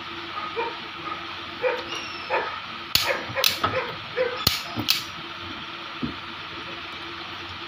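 Sharp metallic clinks of a steel tool and parts knocked against an aluminium cylinder head. About five are packed between three and five seconds in, with a few softer taps before them.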